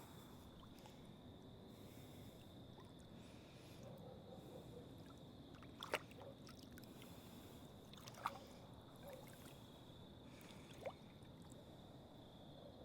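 Near silence by the water: faint trickling and lapping water, with a steady thin high tone and three brief sharp clicks or small splashes about six, eight and eleven seconds in.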